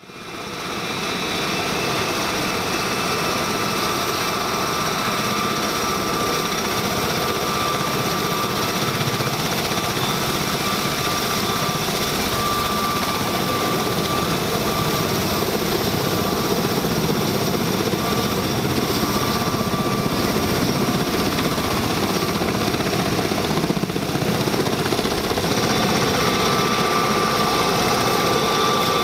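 V-22 Osprey tiltrotor running, its two turboshaft engines and proprotors making a steady heavy thrum with a whine of a few steady high tones over it.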